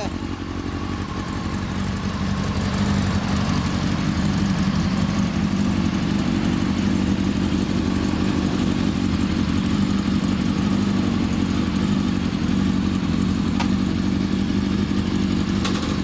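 400cc inline-four motorcycle engine idling steadily through a WR'S aftermarket silencer, a little louder after the first couple of seconds.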